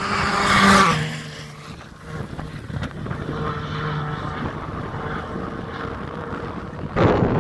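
A Skoda Fabia R5 rally car passes close at speed on a gravel stage, its engine note loud and dropping in pitch as it goes by, with a hiss of flung gravel. After that, a rally car's engine is heard far off and steady. A sudden loud rush of noise starts near the end.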